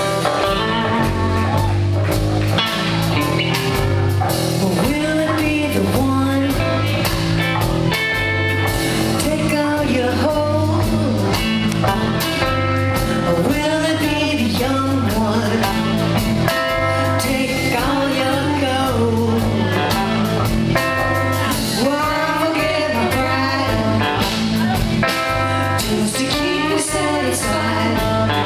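Live blues-rock band playing: electric guitars, electric bass and drums, with a woman singing lead.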